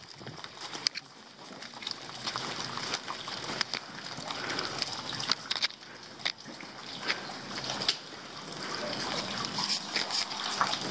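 Heavy rain with water dripping and splashing, sharp drip impacts landing at irregular moments over a steady wash of rain.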